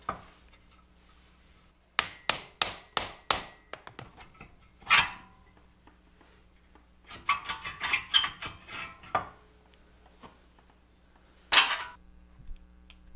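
Metal-on-metal knocks and clatter as a Super Duty Dana 60 front unit bearing hub is worked loose and pulled from the steering knuckle: five sharp ringing strikes about a third of a second apart, another one, then a longer rattling clatter and a last loud knock near the end.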